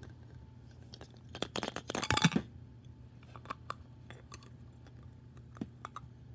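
Toys being opened and handled by hand: a dense run of crackling clicks about a second and a half in, then a few scattered light clicks and taps.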